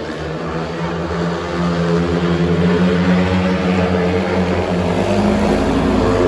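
Several speedway motorcycles' 500 cc single-cylinder engines running hard around the track. They grow louder over the first couple of seconds as the bikes come closer, and their pitch rises slightly near the end.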